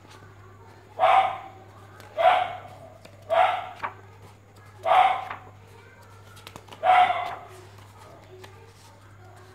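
A dog barking five times, each bark short and loud, at uneven gaps of one to two seconds.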